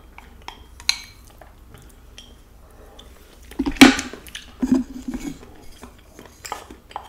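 Wooden chopsticks and a wooden spoon clicking and scraping against a bowl as the last noodles are pushed out of it, with a louder clatter about three and a half seconds in.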